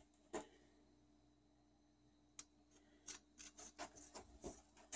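Faint, scattered clicks and small taps of metal engine parts being handled: one early, one near the middle, then a quick run of them in the last couple of seconds.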